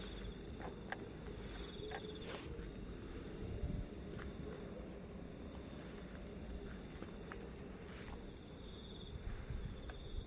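Crickets and other night insects chirping steadily in several high continuous trills, with short pulsed trills coming and going every second or two. There are a few faint clicks and a low rumble under them.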